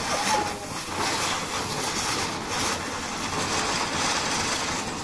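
Ground fireworks burning on concrete, giving a steady hiss with crackling as they spray sparks.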